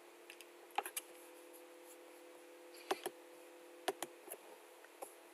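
Faint computer mouse clicks, some in quick pairs, over a low steady electrical hum.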